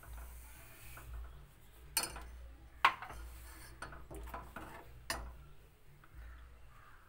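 A steel spoon stirring thick ragi porridge in a stainless steel pot, clinking against the pot with a few sharp knocks, the loudest about three seconds in.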